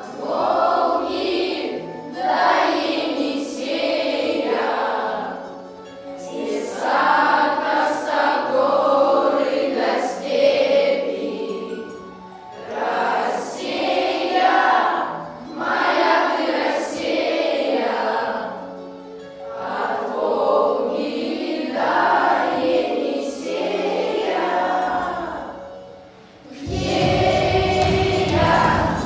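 A children's class choir singing a Russian song together in phrases a few seconds long with short breaks between them. About 27 s in the sound becomes fuller and louder, with a deep low end joining the voices.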